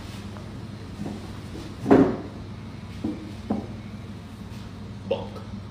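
A few short knocks on a table over a low steady hum, the loudest about two seconds in, as a plated burger is set down in front of a diner.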